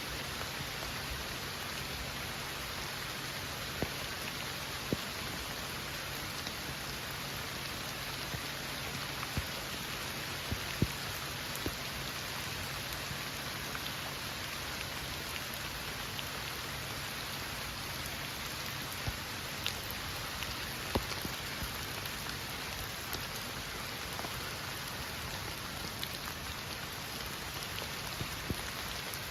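Heavy rain falling steadily, with scattered sharp ticks of drops striking close by.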